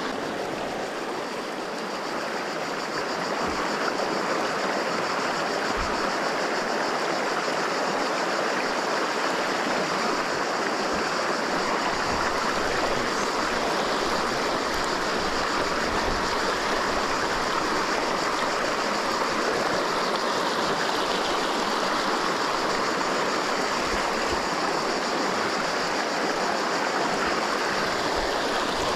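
River water flowing steadily over a riverbed, an even, unbroken rush.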